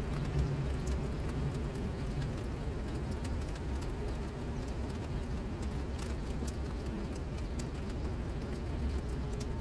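Rain falling on a flooded tiled pavement, drops pattering into standing water with scattered sharp ticks of single drops over a steady low rumble.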